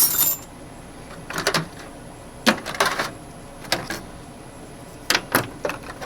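Metal hand tools and sockets clinking and clattering as they are handled and set into a toolbox: an irregular series of sharp knocks and clinks.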